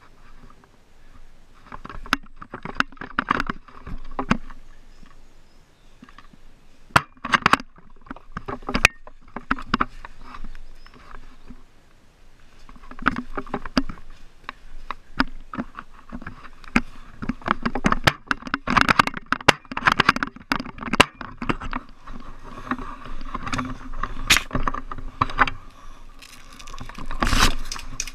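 Handling and movement noise from a player moving quickly over a leaf-strewn forest floor: irregular footsteps, rustling and scraping, with many sharp knocks and clicks scattered throughout.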